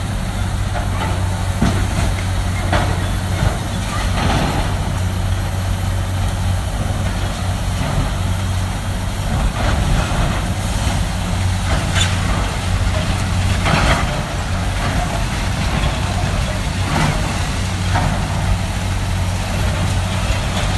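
Heavy diesel demolition machinery running steadily, with scattered sharp cracks and crunches of the building being broken apart, the loudest near the 12 and 14 second marks.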